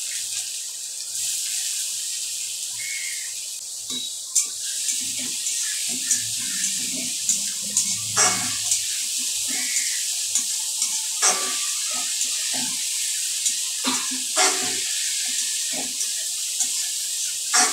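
Chopped onion sizzling steadily in hot oil in a kadai. From about four seconds in, a metal spatula scrapes and clicks against the pan as the onion is stirred.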